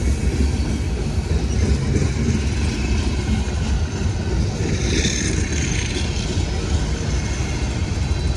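Freight train cars rolling past: a steady low rumble of steel wheels on the rails, with a brief brighter hiss about five seconds in.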